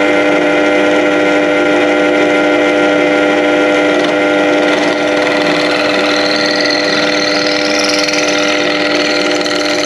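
Benchtop pillar drill running steadily with a constant motor whine as an 8mm bit drills out the centre hole of a radiator fan hub. A higher hiss joins in about six seconds in and fades near the end.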